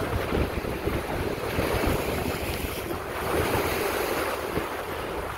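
Wind blowing across the microphone over the rushing wash of water beside a moving boat, a steady noise without any distinct engine tone.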